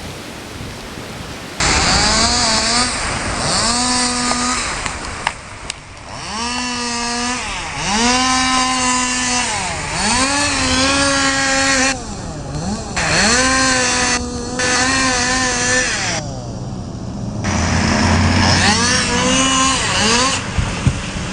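Chainsaw engine revved again and again, each rev a rising whine that settles back to a steady high pitch. The sound breaks off and resumes abruptly several times.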